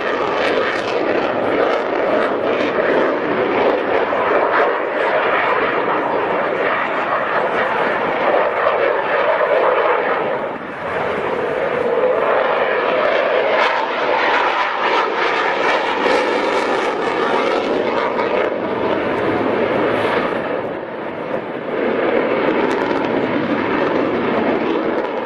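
Loud, continuous jet noise from a Saab JAS 39 Gripen fighter's single jet engine as it manoeuvres overhead. The noise swells and fades as the aircraft turns, dipping briefly twice, about ten seconds in and again near twenty.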